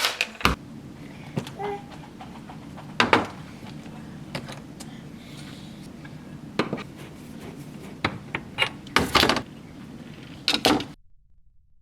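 Scattered clicks, knocks and clatter of parts being handled during the refrigerator repair, over a steady low hum. The loudest cluster of knocks comes about nine seconds in, and the sound cuts off abruptly about a second before the end.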